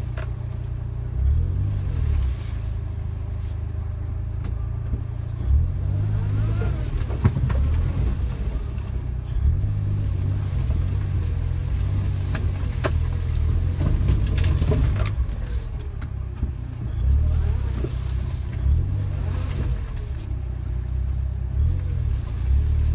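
Suzuki Jimny driving slowly over rough ground: a low engine drone that swells and eases, with a few sharp knocks and rattles.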